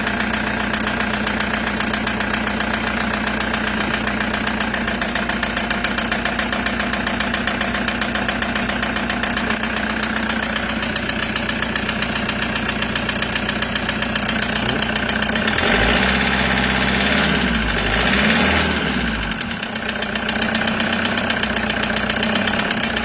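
Toyota 2KD-FTV four-cylinder turbodiesel idling with a steady knock. About two-thirds of the way through it briefly gets louder twice before settling back to idle. The knock was traced to a scored piston and liner in cylinder three.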